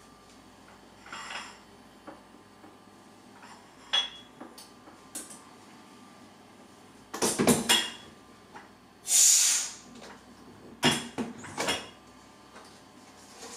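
A plastic vacuum food container and a plate are handled and the container is opened, giving separate knocks and clatters: one about four seconds in, a quick cluster about seven seconds in, and two more near the end. A short hiss comes about nine seconds in as the container is opened.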